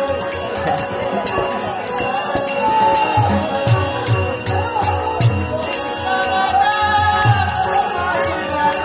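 Live folk-theatre accompaniment: harmonium notes held over regular drum strokes, with small metal bells or cymbals jingling throughout.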